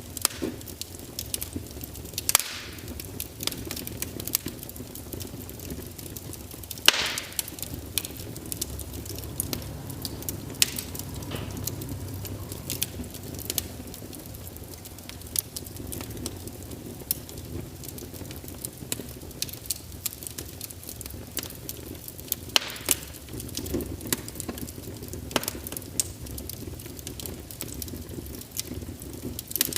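Wood fire crackling steadily, with irregular sharp pops and a few louder snaps over a low rumble of flames.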